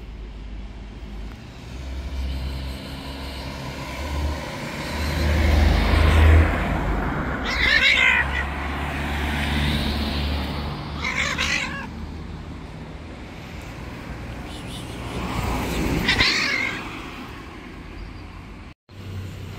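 Angry street cat calling out in three loud cries, about seven, eleven and sixteen seconds in, over a steady low rumble.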